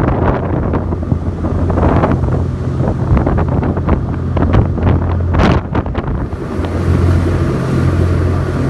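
Wind buffeting the microphone aboard a moving ferry, over the steady low drone of the ferry's engines, with a sharp louder gust about five and a half seconds in.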